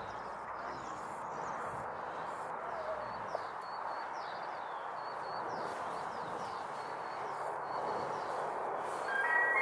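A steady wash of distant jet noise from the Red Arrows' BAE Hawk T1 formation, with a bird chirping over and over above it. A jingle-like tune starts near the end.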